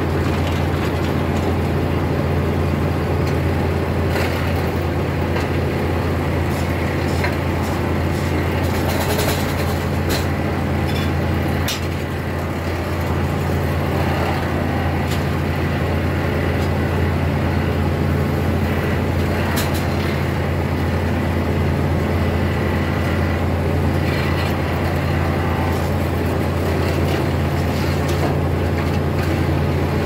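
Foley Belsaw circular sawmill running steadily, its large circular blade spinning freely with no log in the cut, a constant low machine hum with a few light clicks and knocks.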